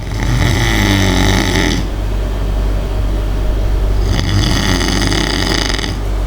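A person snoring: two long snores, each about two seconds, the second starting about four seconds in, over a steady low hum.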